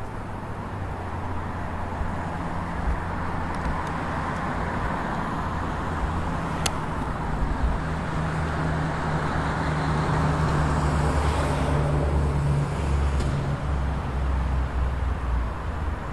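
Road traffic: a motor vehicle's engine hum with tyre noise, swelling louder about two-thirds of the way through as it comes close, then easing off. A single sharp click partway in.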